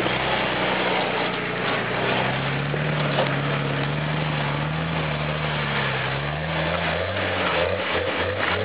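Nissan Patrol 4x4's engine pulling at low revs under load as it crawls up a steep dirt slope. The engine note rises a little, then eases off, with a few short knocks near the end.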